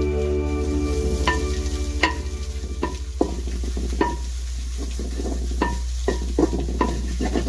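Wooden spoon stirring vegetables frying in a wok, knocking against the pan a dozen or so times at an irregular pace, each knock ringing briefly, over a light sizzle.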